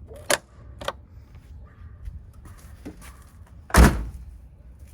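1981 Corvette hood latches working: two sharp clicks, then a single loud, heavy clunk just under four seconds in, with both latches now adjusted to click about the same time.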